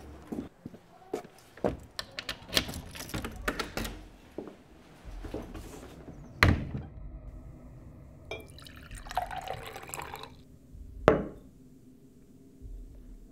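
Footsteps and small clicks, then a door shutting with a heavy thud about six seconds in. Liquid is poured for about two seconds, followed by a sharp knock on a tabletop.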